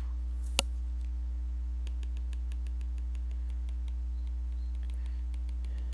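A stylus tapping on a tablet screen: one sharp click about half a second in, then a rapid run of light ticks for several seconds as a dashed line is drawn. A steady low hum lies under it all.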